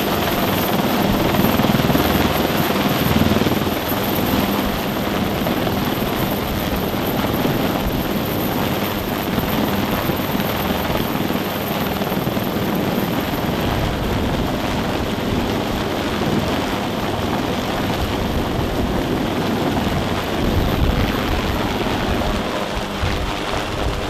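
Bell UH-1 helicopter hovering close overhead: steady, loud rotor and turbine noise with no letup.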